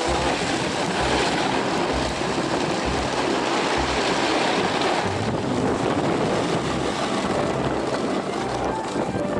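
Steady rushing noise of a snowboard run: wind buffeting the microphone of a head-mounted action camera, with irregular low rumbles, over the board sliding on snow.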